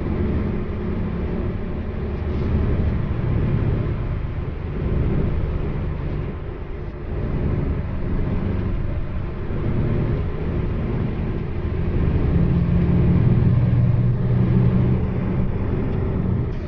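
A road vehicle in motion: steady low engine and road rumble that swells and eases a little, loudest about twelve to fifteen seconds in.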